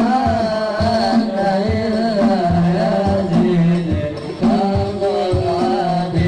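Music: a singing voice with a sliding melody over a steady drum beat.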